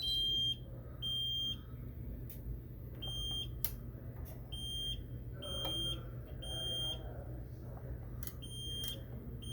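Fire alarm control panel's buzzer sounding short, high-pitched electronic beeps, unevenly spaced about a second apart, while the system remaps its device loop after a reset and still shows troubles.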